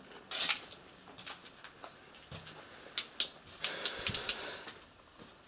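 Footsteps crunching over dry leaves and debris on a tiled floor: an uneven series of sharp crunches, with a busier stretch of crunching a little after the middle.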